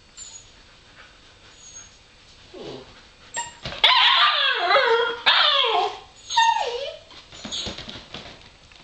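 A puppy whining and yelping, a run of loud cries that fall in pitch, starting about four seconds in, with a few fainter whimpers near the end.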